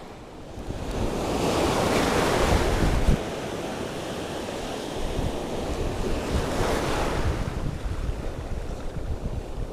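Sea waves surging and washing over the shoreline rocks, two swells of surf about four seconds apart, with wind rumbling on the microphone.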